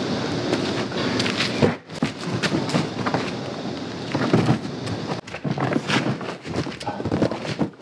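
Bags and boxes of camping gear being lifted and packed into a minivan's cargo area: rustling fabric and plastic with repeated knocks and thumps, briefly dropping away about two seconds in.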